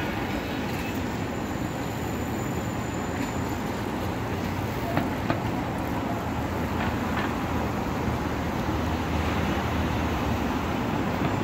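Sport motorcycle engine running steadily at low speed as the bike leans through slow, tight circles, with two short ticks about five seconds in.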